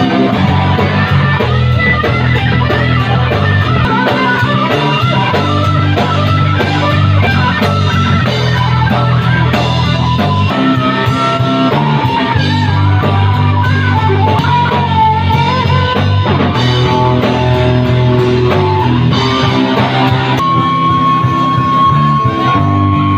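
Live band playing a rock song: guitar over bass and a drum kit keeping a steady beat, with a woman singing the melody into a microphone.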